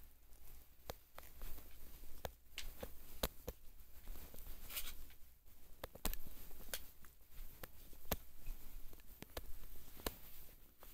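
Sommelier knife's serrated foil blade scraping and clicking against a wine bottle's metal foil capsule as the foil is cut and peeled off. The sound is irregular sharp clicks with a brief rasping scrape about halfway through.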